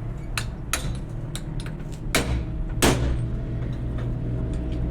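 Several sharp knocks and clanks, the loudest nearly three seconds in with a short ring after it, over a steady low hum.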